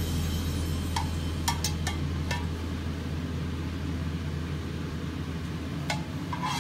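Metal spatula clinking and scraping against a wok and a plate as stir-fried tomato and egg is served. There are several sharp clinks in the first few seconds and two more near the end, over a steady low hum.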